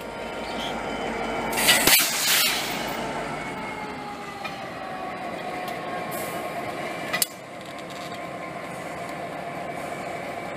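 Diesel-electric road locomotive rolling slowly past at close range, its engine running, with a brief loud hiss about two seconds in and a whine that falls in pitch as it slows. A single sharp clank comes about seven seconds in.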